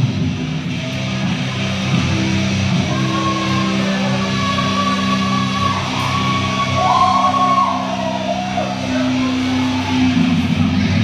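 Amplified electric guitar playing held, ringing notes and chords, the notes changing every couple of seconds, with crowd voices underneath.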